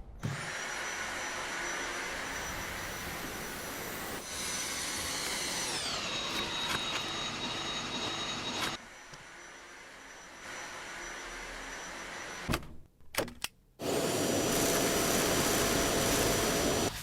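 Cordless stick vacuum running, a steady suction hiss with a high motor whine. A little over a third of the way in the whine glides down to a lower pitch and the sound gets quieter. After a brief break with a few clicks, it runs louder again near the end.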